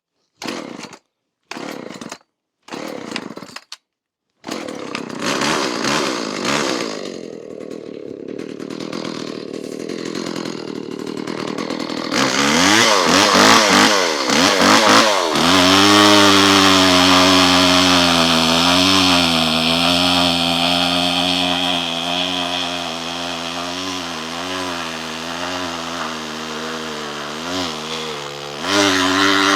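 Homelite Super 2 SL small two-stroke chainsaw running and cutting into a log round. After a few short broken bursts it runs steadily, revs up about twelve seconds in, then holds under load with its pitch dipping and recovering. It is a small saw that the owner finds lacking in power for big wood.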